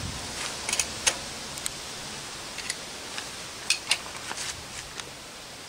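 Scattered light metallic clicks, about ten at irregular intervals, from a spanner working the axle nuts of a front hub motor, over a steady hiss.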